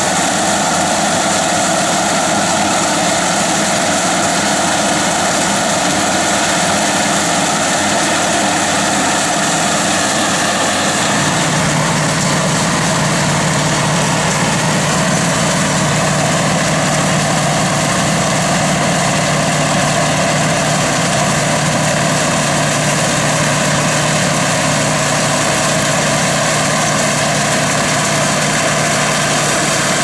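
A compact Kubota tractor's engine and the Allis-Chalmers pull-type combine it tows run together while harvesting rice, a steady, loud mechanical drone from the engine, belts and threshing works. About eleven seconds in the sound turns deeper and heavier.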